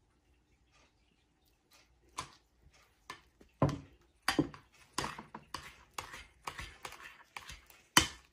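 A metal spoon stirring thick curd in a bowl, its strokes scraping and knocking against the bowl's sides two or three times a second, with the loudest knock near the end. A small glass bowl is set down on the counter before the stirring starts.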